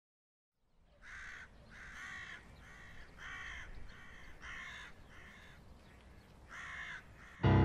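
A crow cawing over and over, a harsh call roughly once a second, above a faint outdoor hush. Near the end, loud music cuts in with a deep sustained chord.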